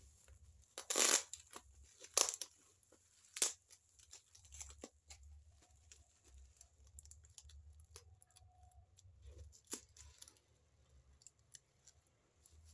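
A plastic-wrapped parcel sealed with packing tape being torn and cut open: three loud rips of tape and plastic in the first few seconds, then quieter rustling of the wrapping and clicks as scissors cut through it.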